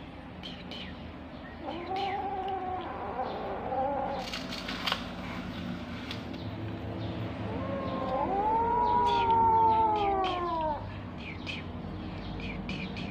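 Kittens meowing: a drawn-out meow about two seconds in, then a longer, louder cry from about eight to eleven seconds in, its pitch rising and then falling. Small clicks and taps sound throughout.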